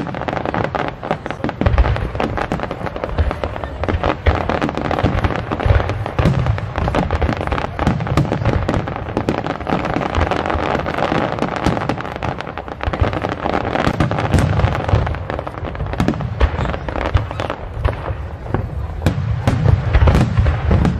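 Aerial fireworks display: shells bursting in quick succession, many overlapping bangs and booms a second over a continuous crackle of glittering stars.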